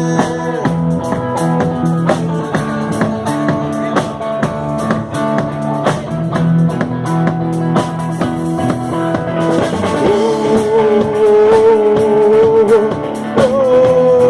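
Electric guitar, bass guitar and drum kit playing a rock-style instrumental intro, with regular drum strokes under held guitar chords. A long, wavering held note comes in about ten seconds in.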